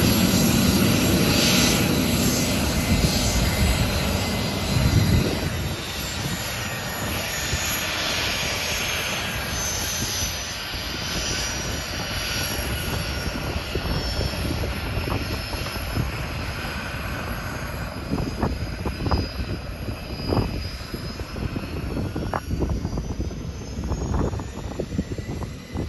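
Learjet 45's twin turbofan engines whining as the jet lines up and starts its takeoff roll, loudest at first and then fading as it moves away. Gusts of wind buffet the microphone in the last third.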